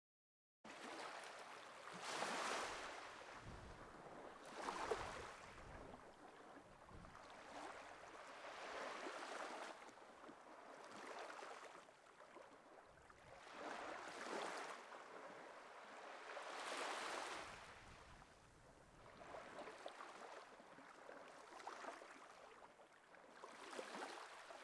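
Faint sea waves washing ashore, each swelling and fading over a few seconds.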